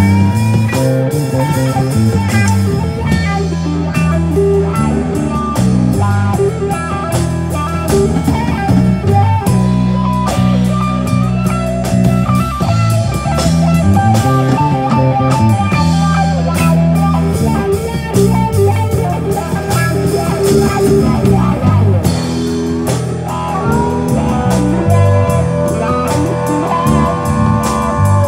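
Live blues-rock band playing an instrumental passage with no vocals: an electric guitar lead with bent notes over a bass line and drums.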